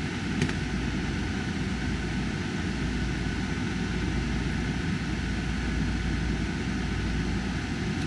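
Steady whir and air rush of a running air-conditioner blower, with a faint click about half a second in.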